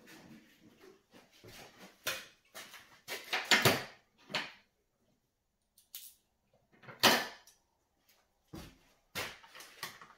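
Handling noises from hand tools and a plastic electric chainsaw: a series of separate knocks and clacks, the loudest about three and a half and seven seconds in.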